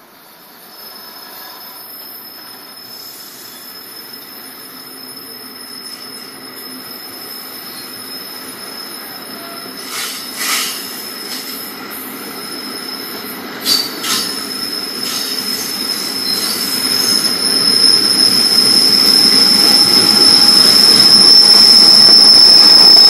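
NJ Transit MultiLevel double-decker passenger train rolling past, growing steadily louder. A thin, high, steady wheel squeal builds through the second half. A few sharp clacks come in two clusters near the middle.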